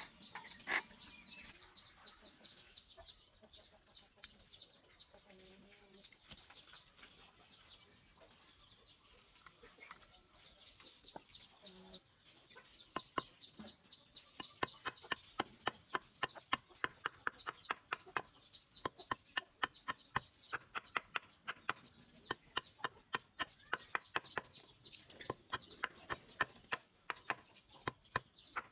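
Hand saw cutting a small block of wood in quick back-and-forth strokes, about three a second, starting about halfway through after a quieter stretch of handling.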